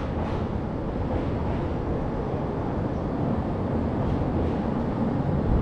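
Steady low rumble of outdoor city ambience, with a few faint footsteps.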